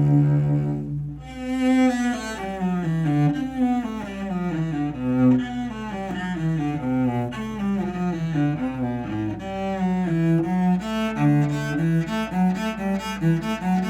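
Cello being bowed, playing a flowing run of notes that change about twice a second, after a brief break about a second in.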